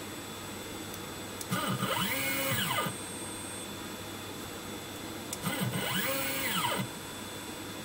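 Stepper-driven X axis of a small CNC mill making two short rapid moves, 5 mm out and 5 mm back, in a repeatability test. Each move is a motor whine about a second and a half long that rises in pitch as the axis speeds up, holds, and falls as it slows to a stop. Between the moves there is a steady faint hum.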